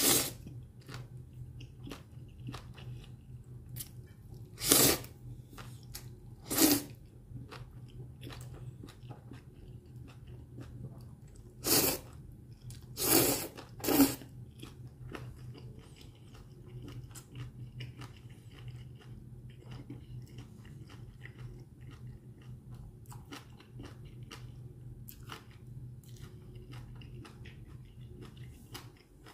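A person slurping black-bean-sauce jjajang ramen noodles, with several short loud slurps in the first half, then chewing them with small wet clicks and smacks through the rest.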